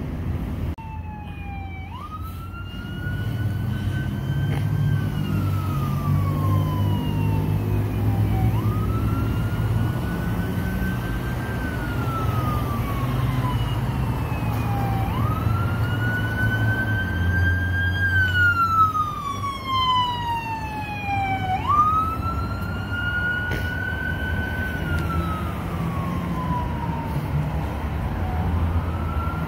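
Fire truck siren on a slow wail: each cycle rises quickly and falls away over about six seconds, repeating, over the low rumble of a heavy engine. About two-thirds of the way through, a second, quicker falling siren tone sounds briefly.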